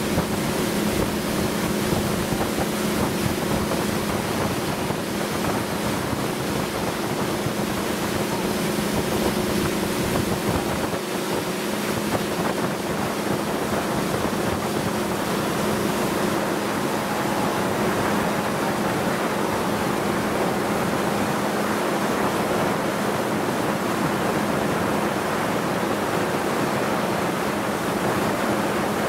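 Boat engine running at a steady speed with a constant hum, under the hiss of rushing water and wind buffeting the microphone.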